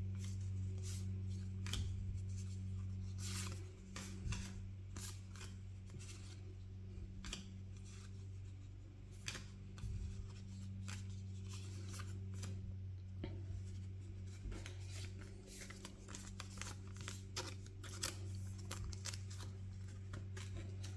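Magic: The Gathering trading cards being handled and sorted by hand: scattered light clicks and rustles as cards slide against each other and are set down on a playmat, over a steady low hum.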